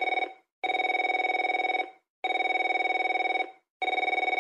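Mobile phone ringing with a fast trilling ring tone, in rings of just over a second separated by short gaps: the end of one ring, two full rings, and a fourth starting near the end.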